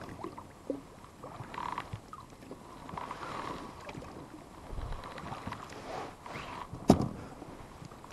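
Small rowboat being manoeuvred on the water: irregular splashing and oar strokes, with one sharp knock near the end.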